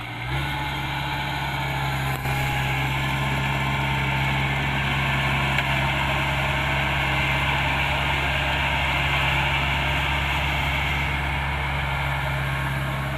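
Kubota DC-70 Plus combine harvester's diesel engine running steadily under a higher machine whine, growing louder just after the start.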